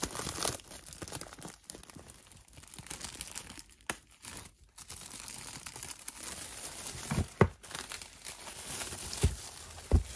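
Packaging crinkling and rustling as a boxed Blu-ray set is unwrapped and lifted out, with a few sharp knocks in the second half.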